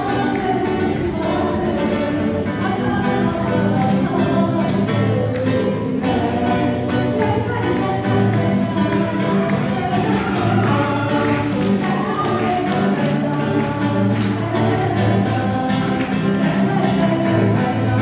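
Song with singing voices over instrumental accompaniment, playing continuously.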